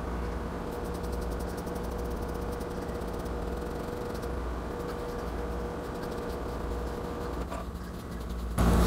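Steady machine hum with a held mid-pitched tone running under it. It gets louder shortly before the end.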